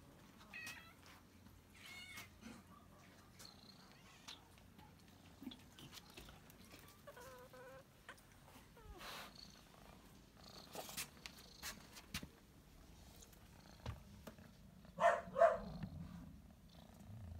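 Domestic cats meowing with short calls every few seconds, the two loudest meows coming close together near the end, over a low, steady purr. They are hungry cats begging to be fed.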